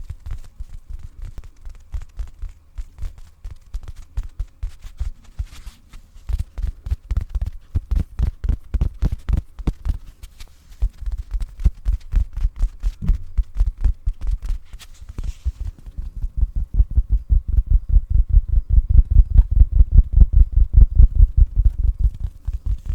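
A pillow tapped rapidly close to the microphone: a fast, even run of soft, low thumps that grows louder about two-thirds of the way through.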